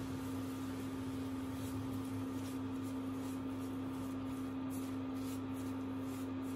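Silicone spatula stirring grated apple and sugar in a nonstick frying pan: soft, irregular scraping strokes, starting about a second and a half in, over a steady electrical hum.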